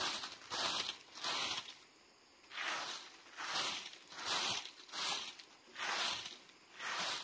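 Straw broom of dried stalks sweeping bare packed dirt: a rhythmic run of swishes, about one and a half strokes a second, with a brief pause about two seconds in.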